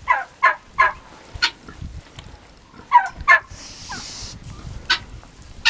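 Farmyard fowl calling in short, sharp, repeated calls: a quick run of three near the start and a pair about three seconds in. A brief breathy hiss comes about four seconds in.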